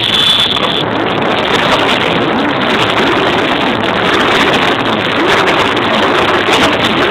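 Many motorcycle engines running together, a dense massed sound with pitches gliding up and down as the riders rev their throttles. This is a 'motorcycle orchestra' of bikes revved in unison on cue.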